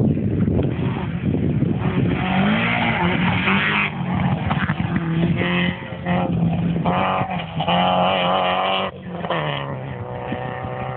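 Rally car engine on a gravel special stage, revved hard through the gears: its pitch climbs and drops several times with short lifts between, over gravel and tyre noise.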